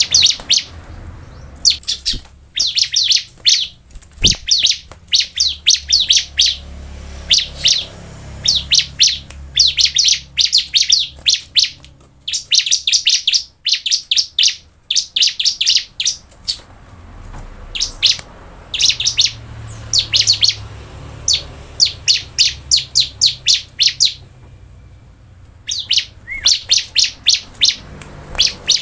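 Bar-winged prinia (ciblek) singing: rapid, high chattering phrases about a second long, repeated again and again with short pauses, with a break of about two seconds near the end.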